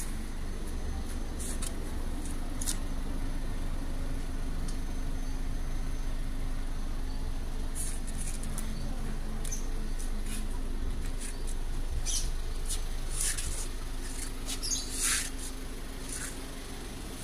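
Steady low hum of an idling engine, with short high-pitched chirps scattered over it, thickest in the last few seconds.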